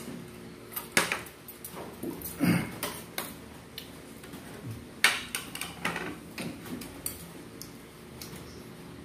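A metal spoon clinking and scraping against a dinner plate several times, with sipping and chewing sounds of a person eating.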